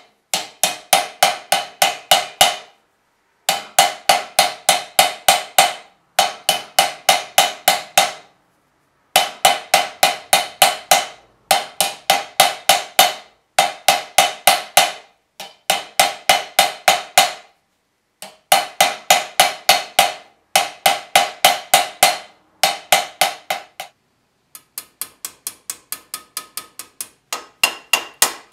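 Rapid hand-hammer blows on a copper strip held over a steel pipe stake, about five blows a second in runs of a couple of seconds with short pauses, each blow ringing. Near the end the blows turn lighter, then sharper with a higher ring.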